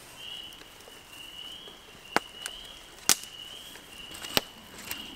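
Sharp knocks of hand work on wood. The three loudest come about a second apart from about two seconds in, over a high chirp that repeats about every three-quarters of a second.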